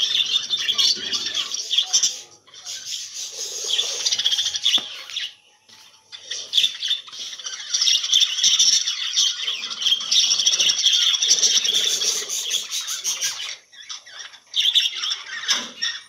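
A colony of budgerigars chattering and chirping together in a dense, unbroken warble, with brief lulls about six seconds in and again about fourteen seconds in.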